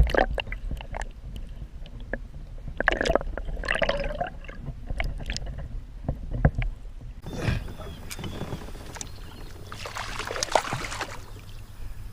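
Scattered knocks and clicks of gear handled against a kayak, with water splashing about ten seconds in.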